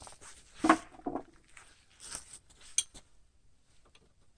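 A few separate sharp metallic clinks and knocks of hand tools and metal parts being handled, the loudest about two-thirds of a second in.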